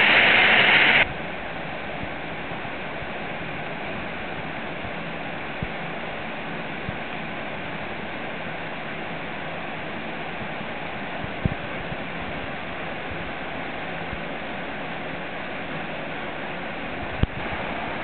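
A 5 m waterfall pouring past a wedged chockstone into its plunge pool, loud for about the first second, then a sudden cut to a quieter, steady rush of mountain stream water. Two short knocks stand out, one about eleven seconds in and one near the end.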